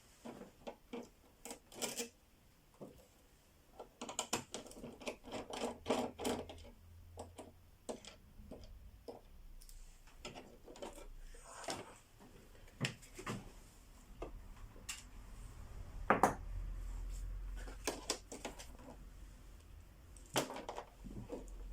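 Irregular clicks, taps and scraping from taking apart a flat-screen TV by hand: screws being undone and plastic casing parts handled. A faint low hum comes in during the later part.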